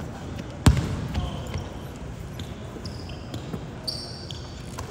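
Basketball game sounds in a gym: one loud ball bounce on the hardwood a little under a second in, sneakers squeaking on the court several times, over a low hum of the crowd.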